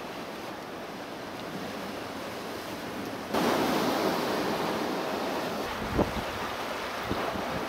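Rough sea surf washing against a rock shelf, mixed with wind on the microphone. The noise steps up suddenly about three seconds in, and a short thump comes about six seconds in.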